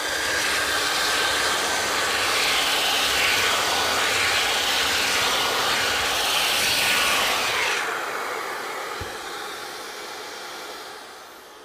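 Handheld belt sander running on a wooden board with a vacuum hose drawing dust from its port. The noise starts to fall about eight seconds in and fades away as the machine winds down.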